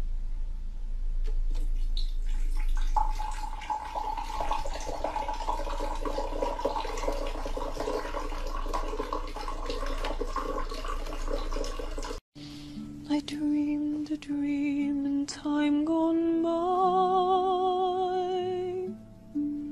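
Water pouring in a steady stream from a bottle into a drinking glass, splashing as a rainbow lorikeet bathes under it. After about twelve seconds it cuts off sharply and music follows, with held notes that waver.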